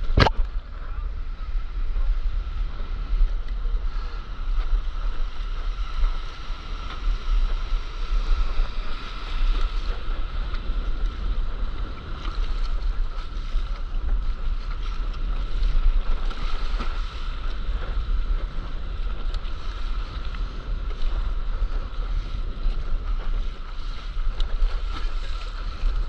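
Wind buffeting an action camera's microphone over the wash of sea water and small waves around a paddleboard, with one sharp knock at the very start.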